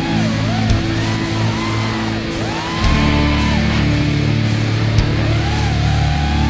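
Rock music: an electric guitar plays a bending lead melody over sustained low chords.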